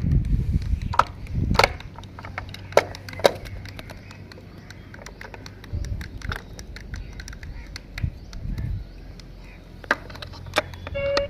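Irregular sharp clicks and knocks with low rumbling handling noise, the busiest stretch in the first two seconds: small toys being handled.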